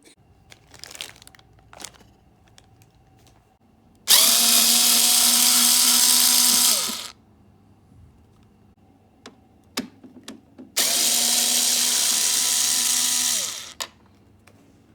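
Power drill run twice in bursts of about three seconds each, its motor spinning up and winding down each time, with a few small clicks between the bursts.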